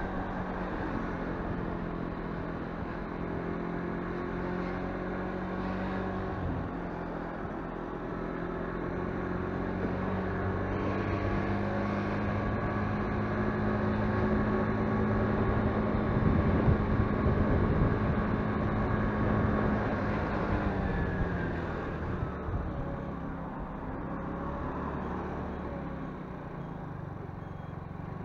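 The motorbike's engine runs at a low, steady cruising speed with road and wind noise. It grows louder in the middle, then the pitch drops and it eases off about two-thirds of the way through as the bike slows.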